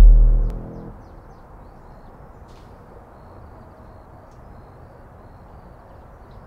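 A deep, sustained low drone fades out within the first second. It is followed by quiet steady room tone with a few faint, short high chirps.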